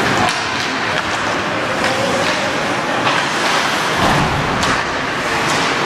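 Ice hockey play in a rink: a steady hiss of skates on the ice, broken by scattered sharp clicks and knocks of sticks and puck.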